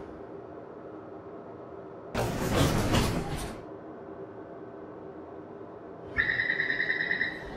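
Subway train sound effects: about two seconds in, the doors slide open with a rush of air that lasts about a second and a half, over a steady low hum. About six seconds in, a high, rapidly pulsing door-warning beep starts.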